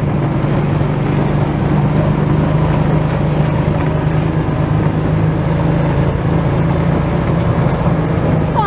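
Utility vehicle's engine running steadily while driving, a constant low drone with road noise and no change in speed.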